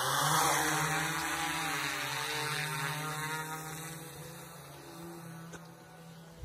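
DJI Inspire camera drone's propellers humming as it lifts off and climbs away, the sound fading steadily as it rises.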